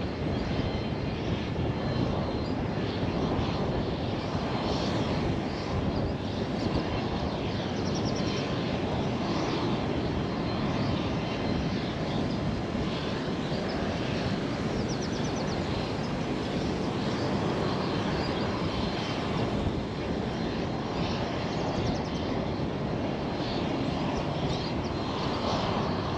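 Airplane engine noise, a steady, even rumble.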